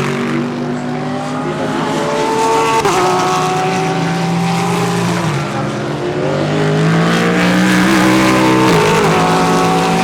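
GT3 race cars accelerating hard past the track, several engines overlapping. Their pitch climbs and then drops sharply at upshifts about three times.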